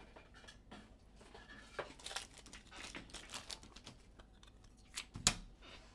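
Trading cards and their packaging being handled: crinkling and rustling with light taps, and a sharper snap about five seconds in.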